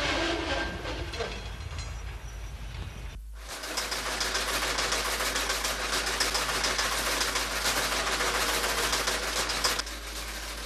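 Rail-yard noise with a freight wagon rolling, then, about three seconds in, a louder steady rushing noise full of fine crackle that stops abruptly near the end.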